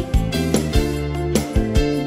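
Upbeat children's worship song in an instrumental stretch: drum beat, bass and guitar chords.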